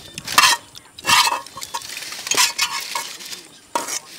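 Aluminium foil crinkling and rustling in several short bursts as it is pulled open and handled.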